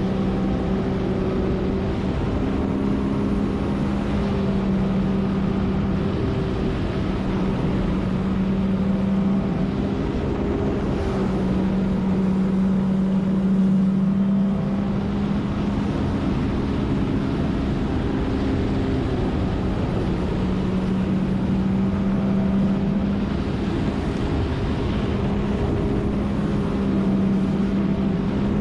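Jet ski engine running steadily at high speed, a constant drone holding nearly one pitch, over the rush of water along the hull.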